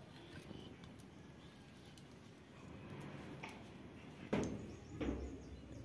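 Two sharp knocks of steel cooking utensils, less than a second apart, over a quiet background.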